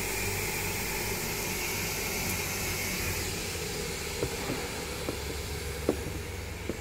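Steady rushing hiss with a high whine that fades out about three seconds in, and a few light clicks near the end.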